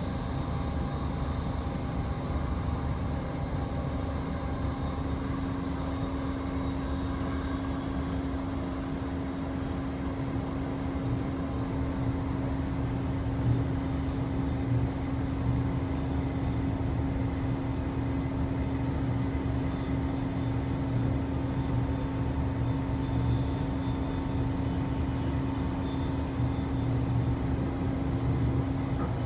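Cabin noise inside a Queensland Rail New Generation Rollingstock (NGR) electric train running along the line: a steady low rumble with a constant hum and a few faint higher tones.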